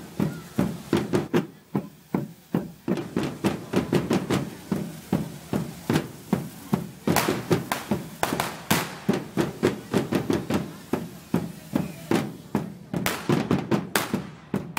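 Firework fountains on a festival dragon figure spraying sparks with a hiss, over a steady beat of loud knocks about three a second. Near the end come several sharp cracks of firecrackers.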